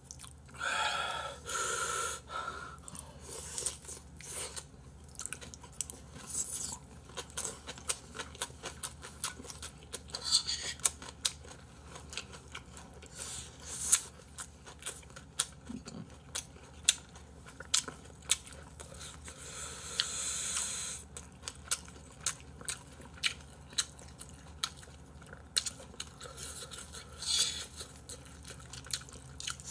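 Close-miked eating: chewing and crunching mouth sounds, with irregular sharp clicks of chopsticks against bowls and plastic food trays.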